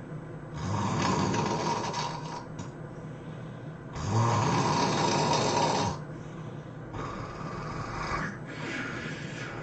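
A sleeping person snoring loudly: four snores, each a second or two long, with short gaps between them; the second snore is the loudest.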